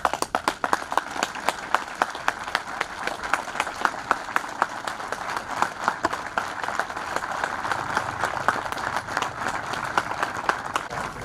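A small crowd applauding, the clapping breaking out all at once as the sign is uncovered.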